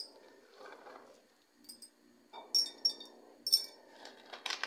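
Allspice berries dropped into empty glass jars, clinking sharply on the glass. There is one clink at the start, then several more in quick succession from about two and a half seconds in.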